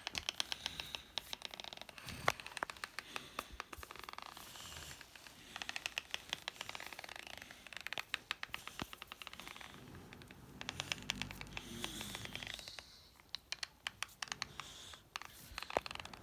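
Loud teeth grinding (bruxism): runs of rapid scraping clicks as the teeth rub hard against each other, coming in bouts of a second or two with short pauses between.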